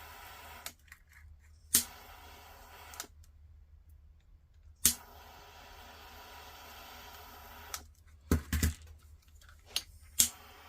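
A few sharp clicks and taps of small tools and parts being handled on a workbench during soldering, one around 2 seconds in, one around 5, a quick cluster near 8.5 and one near the end, over a faint steady hiss that drops out in places.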